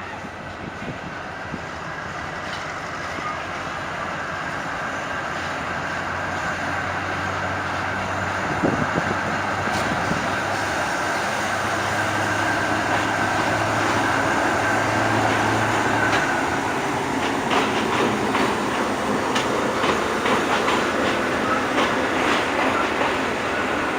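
Diesel-hauled train moving along the station tracks, its engine running steadily and growing louder. About two-thirds of the way through the engine sound drops away and a run of wheel clicks over the rail joints follows.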